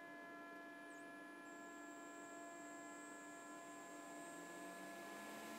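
Faint, steady electrical hum made of several fixed tones, with a thin high whine joining about a second and a half in; otherwise near silence, with no machine cutting.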